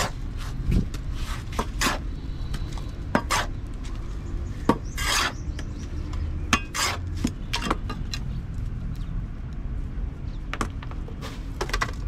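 Steel trowel scraping across wet concrete packed in a steel block mould, in irregular strokes with sharp metallic clicks and taps of the blade, one longer scrape about five seconds in.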